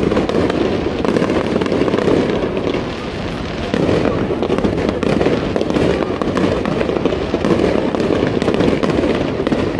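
Aerial fireworks going off in a dense run of many overlapping bangs and crackles, easing briefly about three seconds in.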